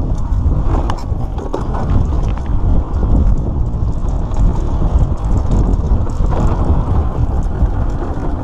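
Mountain bike riding fast down a rough dirt trail: a steady rumble of wind on the microphone, with tyre noise and the bike rattling and knocking over bumps.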